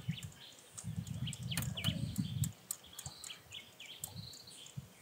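Birds chirping in short calls, with a low rumbling noise for about a second and a half near the start.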